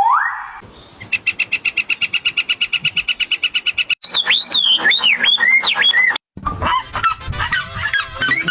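A string of different animal calls cut one after another. A short rising sweep comes first, then a rapid even trill of about a dozen pulses a second, then sliding whistled bird calls, then a busier jumble of calls.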